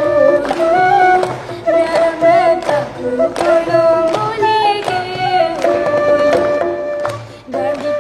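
A young child singing a melody over musical accompaniment, with held, wavering notes and a brief break near the end.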